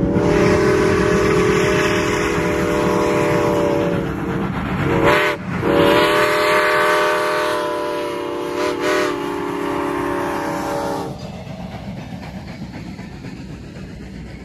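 Steam locomotive whistle blowing a grade-crossing signal as the train approaches: long blasts of a steady multi-tone whistle, broken briefly around four to five seconds in and again near nine seconds, ending about eleven seconds in. A low rumble from the train runs beneath it, and the passenger coaches rolling past carry on after the whistle stops.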